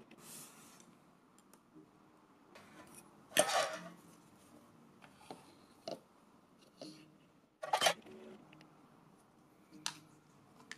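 Parts of a Kompresso hand espresso maker being handled and set down on a table: scattered clicks and knocks of the pieces, the two loudest about three and a half and eight seconds in.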